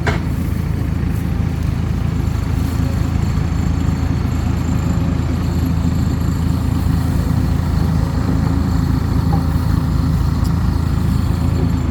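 Dump truck's diesel engine running with a steady low drone.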